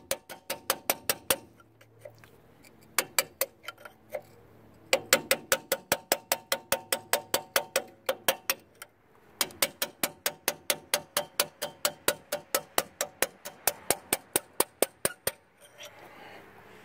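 Hammer striking a steel pin punch to drive a brake caliper slide pin out: quick runs of sharp, ringing metal taps, about five a second, with short pauses between runs.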